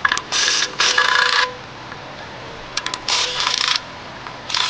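Cordless power tool running in four short bursts as it spins out the 10 mm oil pan bolts one after another, with a few light clicks between the second and third bursts.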